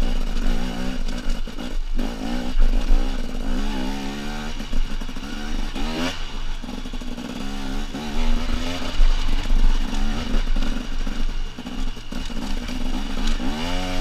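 Husqvarna TE250 dirt bike engine revving up and down under load as it climbs a rocky hill track, the pitch rising and falling repeatedly with a sharp rev near the end. Loose stones clatter under the tyres.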